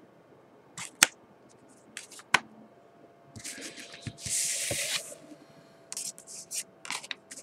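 Pokémon trading cards being handled: a few light clicks as cards are tapped and set down, and a brief rustle of cards sliding together about four seconds in.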